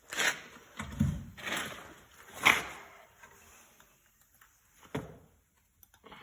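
Several knocks and clunks of metal transmission parts being handled and set down during an E4OD rebuild, with a low thud about a second in and the loudest knock about two and a half seconds in.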